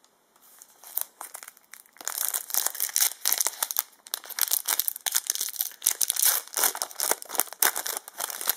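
Plastic-foil Yu-Gi-Oh booster pack wrapper crinkling and being torn open. It is sparse for the first two seconds, then becomes a dense, irregular crackle.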